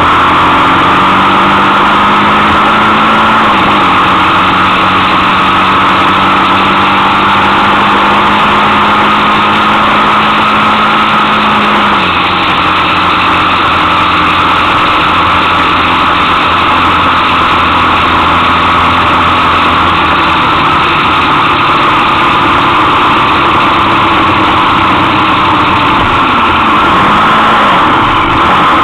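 Motorcycle engine running at road speed under heavy wind rush on a bike-mounted camera. The engine note steps down in pitch about 4 seconds in and again about 12 seconds in.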